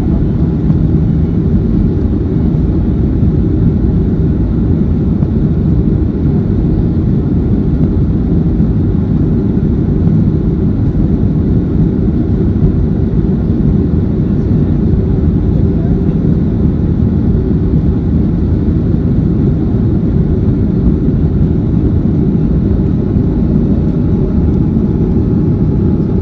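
Steady low rumble of a Boeing 737-400 in flight, heard from inside the cabin: its CFM56 turbofan engines and the airflow over the fuselage, unchanging in level.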